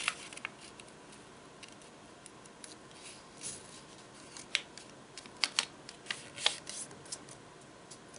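A square of origami paper being folded and creased by hand: faint scattered crisp rustles and ticks of the paper, the sharpest about halfway through and again a little later.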